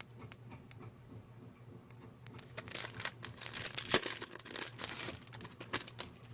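Crinkling and rustling of a plastic packet of paper word embellishments being handled, with a few light taps before it. The crinkling runs for about three and a half seconds and is loudest about four seconds in.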